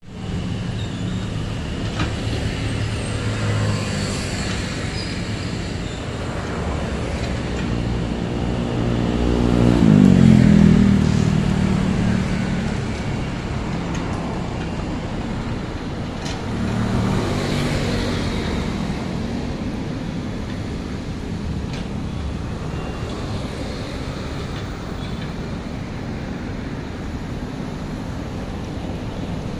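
Sumitomo compact crawler excavator's diesel engine running as the machine digs, with the engine and hydraulics working harder twice, loudest about ten seconds in and again around seventeen seconds.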